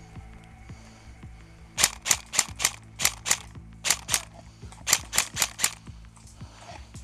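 Airsoft gun firing about a dozen sharp shots in four quick strings, roughly four shots a second, starting about two seconds in and stopping near the six-second mark.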